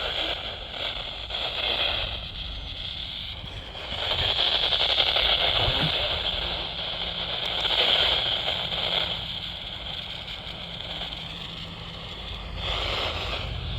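Weather radio tuned to a weak, distant NOAA Weather Radio station: static and hiss that swell and fade several times, with the broadcast barely coming through.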